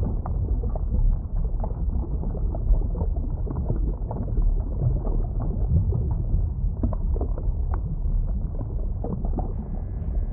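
Muffled underwater ambience: a steady low rumble with many small crackling bubble sounds. Faint sustained musical tones begin near the end.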